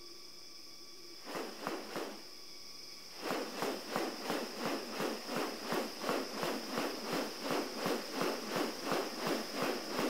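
Wings of a male bird-of-paradise rustling in courtship display. There are a few rustles at first, then about a third of the way in a steady rhythm of two to three wing-beats a second. A steady high-pitched insect drone runs underneath.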